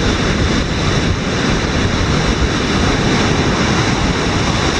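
Loud, steady rush of whitewater rapids at close range, with wind buffeting the microphone.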